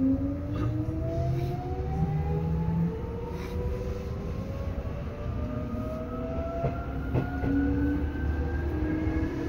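Seibu 2000 series electric train picking up speed: the whine of its traction motors and gears climbs steadily in pitch over the low rumble of the wheels, with a few clacks at rail joints.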